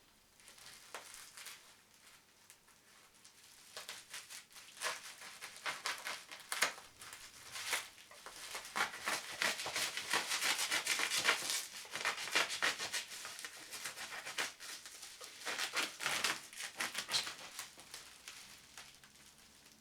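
Packaging being handled during an unboxing: irregular crinkling, rustling and light knocks, densest through the middle and thinning out near the end.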